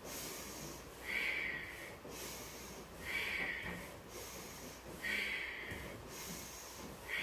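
A woman breathing forcefully through her nose in a fast, steady rhythm, inhaling and exhaling about once a second each as she rocks her torso forward and back in a seated spinal flex. The breaths alternate between a louder rush and a thinner hiss.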